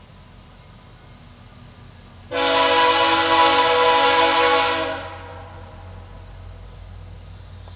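A train horn sounds one long blast, starting suddenly a little over two seconds in and fading out after about two and a half seconds, over a steady low rumble.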